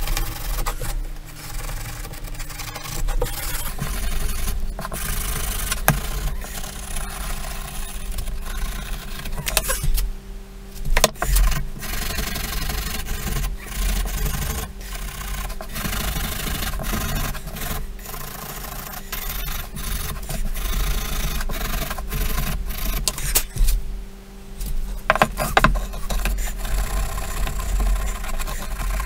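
Hand wire brush scrubbing back and forth over carved solid oak, the bristles rasping steadily as they clear the raised wood fuzz out of the v-carved detail. There are short pauses about a third of the way through and again about four-fifths of the way through.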